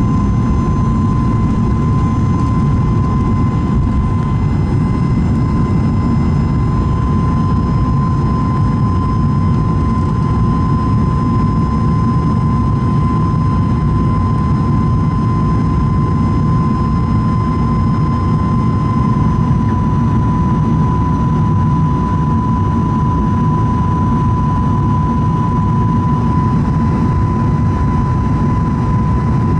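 Steady cabin roar inside a Boeing 737 MAX 8 climbing after takeoff, the sound of its CFM LEAP-1B turbofans and airflow over the fuselage, with a steady high tone running through it.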